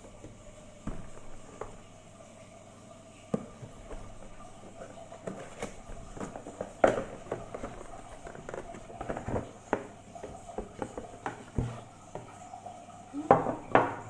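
Irregular light clicks and knocks of small objects being handled, a quick cluster of them near the end, over a faint steady hum.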